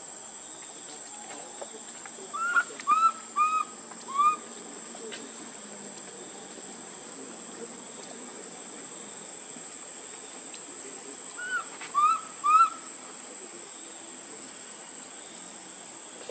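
Short arched animal calls: a run of four about two seconds in and three more near the end of the middle, over a steady high-pitched insect drone.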